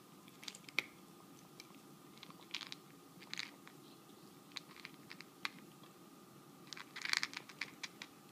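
Two cats eating from a metal bowl: irregular crunching and clicking chews, with a busy flurry about seven seconds in.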